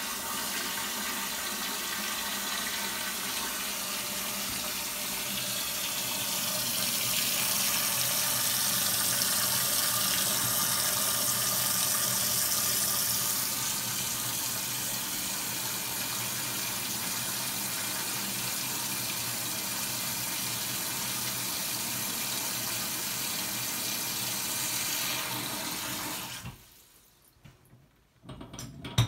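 Water spraying from a pull-down kitchen faucet sprayer into an empty stainless steel brewing kettle pot, filling it: a steady hiss and patter that grows louder for several seconds in the middle and stops shortly before the end.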